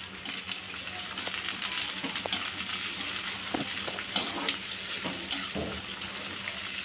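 Sliced onions with green chillies and ginger sizzling in hot oil in a metal kadhai, with a spatula scraping and clicking against the pan as they are stirred.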